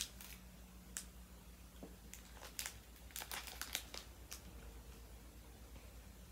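Small plastic candy packet crinkling as fingers pick a candy out of it and put it down: a handful of short, sharp crinkles, most of them between about two and four seconds in.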